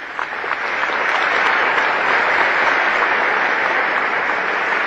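Audience applauding, building up over the first second, holding steady, then easing slightly near the end.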